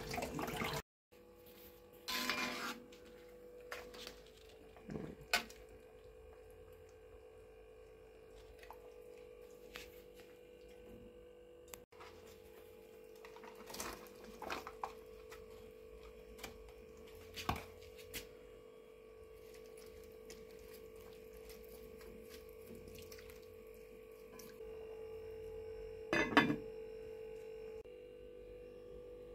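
Metal cooking pots and lids clanking now and then, over a steady, even-pitched hum.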